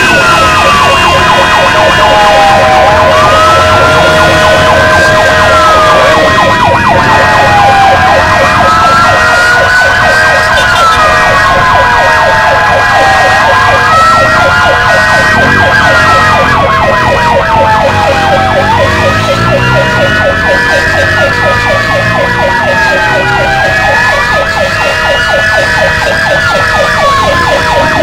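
Ambulance siren wailing, a slow rise and fall in pitch that repeats about every five seconds, over steady held tones.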